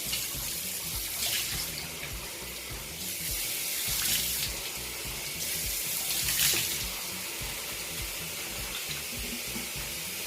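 Cold tap water running into a bathroom sink, with louder splashing swells several times as baking-soda scrub is rinsed off a face.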